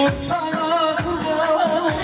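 Live band playing Turkish wedding music: a wavering melody with singing over a drum beat.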